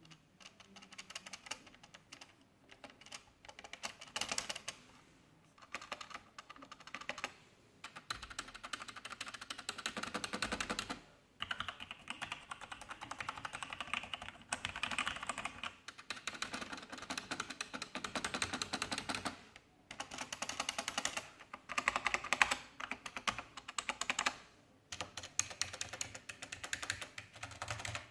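Logitech G910 mechanical gaming keyboard being typed on and tapped in rapid bursts of clicking keystrokes with short pauses between them. The space bar and other large keys give a rattling, clattery feedback, a fault the owner complains of in a new keyboard.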